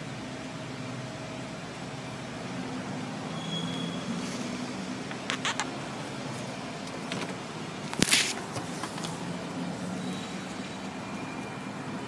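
Car idling in stopped traffic, heard from inside the cabin: a steady low engine hum with road noise. A few sharp clicks come about five seconds in, and a louder click about eight seconds in.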